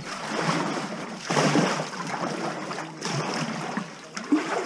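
Kayak paddling: water swishing and splashing off the paddle blades in swells about every second and a half, with a brief sharp knock near the end.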